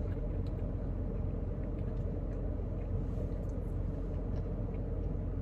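Steady low rumble and hum of an idling car, heard from inside the cabin.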